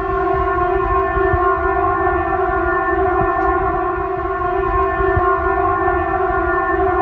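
Emergency alert alarm tone played back: one steady, buzzy pitched tone that holds without rising or falling, with a rough rumble beneath.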